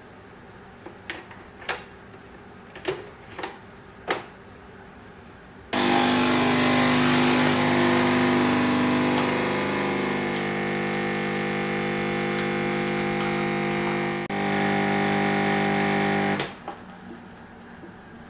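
A few light clicks and knocks, then a small electric motor starts with a steady, loud humming whir. It runs for about ten seconds, falters once briefly and stops abruptly.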